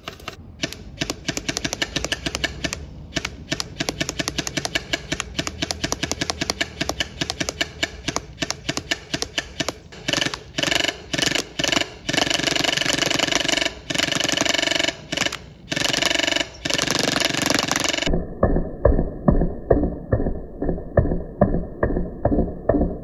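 Action Sport MXC9 airsoft electric rifle (AEG) firing BBs on full auto: a fast, even rattle of shots in long bursts with short pauses. About 18 seconds in, the sound turns muffled and slowed, with separate thuds a few times a second, the shots replayed in slow motion.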